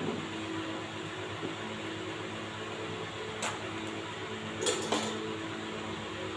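Steady kitchen cooking noise: an even hiss over a low hum, broken by a sharp clink about three and a half seconds in and two more close together about a second later, as of utensils on a pan.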